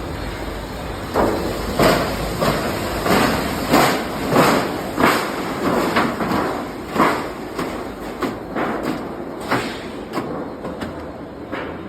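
Cold milling machine (road planer) working: a steady mechanical noise with repeated loud clanks and thuds, about one or two a second, growing sparser and fainter near the end.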